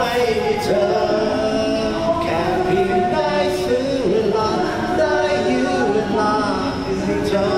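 Man singing a melody into a Magic Karaoke YS-10 handheld Bluetooth karaoke microphone, his voice amplified through its built-in speaker.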